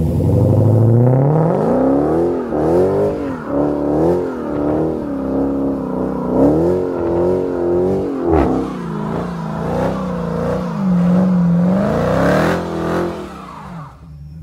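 Dodge Challenger SRT's V8 revving hard and repeatedly, its pitch rising and falling over and over as the rear tyres spin in a smoky burnout. It drops away near the end.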